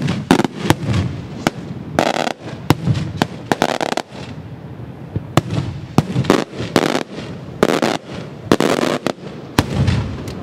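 Maltese beraq aerial shells bursting in a rapid, irregular string of sharp bangs, several a second, with a few longer rushing bursts among them.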